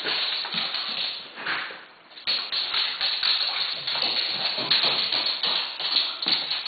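A dog's claws clicking and tapping rapidly on a hardwood floor as it prances about, easing off briefly about two seconds in.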